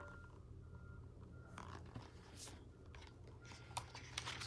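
A picture book being handled: a few faint paper rustles, more of them near the end, over a low steady hum of room tone.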